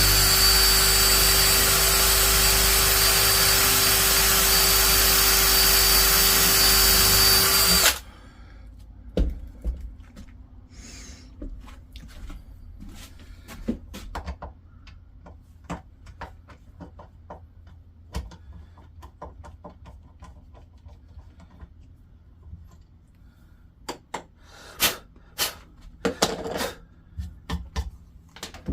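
Electric drill running steadily, boring a screw hole through the butt plate into a wooden shotgun stock, then stopping abruptly about eight seconds in. Scattered light clicks and handling knocks follow.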